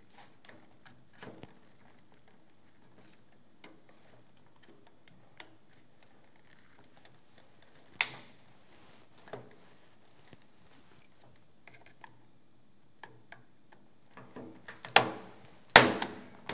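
Faint clicks and ticks of a screwdriver working screws out of a small portable TV's metal case, with a sharp clack about eight seconds in. Near the end a few louder clacks as the screwdriver and metal set are put down on the steel bench.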